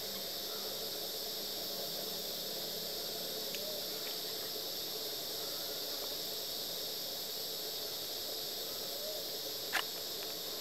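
Steady, high hiss of an insect chorus in tropical forest, with one brief sharp call or click near the end.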